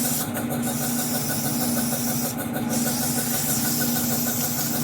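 Air compressor running steadily, with the hiss of compressed air from a blow nozzle cleaning debris off a lawn mower engine. The hiss cuts out briefly near the start and again about halfway through.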